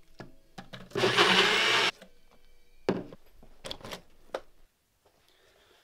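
Single-serve blender running in one short burst of about a second. Short knocks and clicks of the plastic cup on the motor base come just before and after it.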